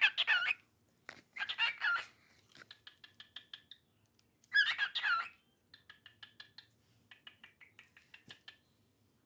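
Cockatiel calling: three loud warbling squawks, the first at the start, one about a second and a half in, and one near five seconds in. Between the squawks it makes runs of soft, rapid chattering chirps, about five a second.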